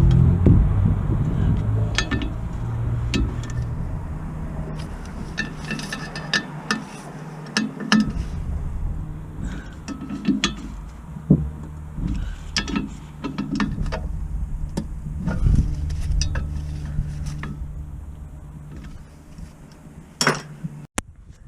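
Metal tools and parts clinking and knocking irregularly as they are handled, over a steady low hum.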